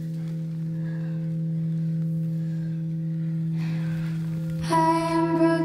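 Ambient drone music: a steady low tone held throughout, joined near the end by a brighter ringing tone with many overtones.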